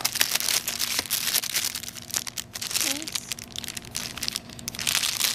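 Clear plastic bag around a new mobile phone crinkling in irregular crackles as it is handled and lifted out of its cardboard box.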